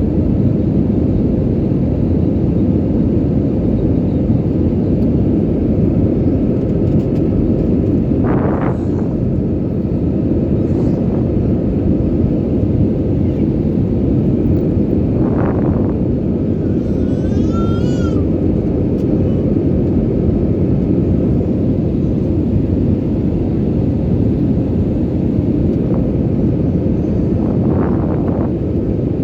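Passenger airliner's cabin noise: a steady, deep rumble of engines and airflow heard from inside the cabin.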